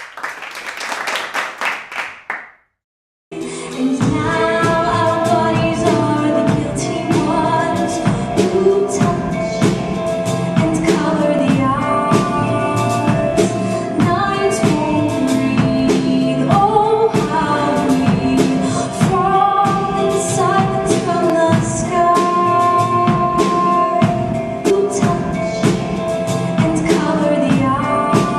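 A short burst of noise and a brief gap, then a live stage-musical performance: a woman singing into a handheld microphone over a band with a steady drum beat.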